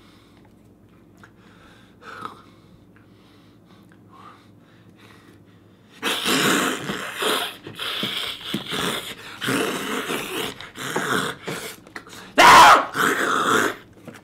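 A man's strained growls and grunts of effort while forcing a small carving tool into a pumpkin. The first few seconds are quiet with faint scrapes; from about six seconds in the growls come loud and irregular, loudest near the end.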